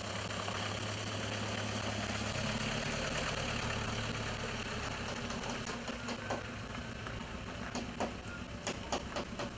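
Small pickup truck's engine running as the truck drives off, its note changing about two seconds in. A few light clicks come near the end.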